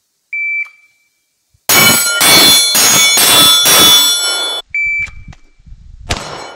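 Shot-timer start beep, then a Glock 19 9 mm pistol firing a quick string of five shots at steel targets, the steel plates ringing after the hits. A second timer beep follows, and near the end the same string starts again, with shots and ringing steel.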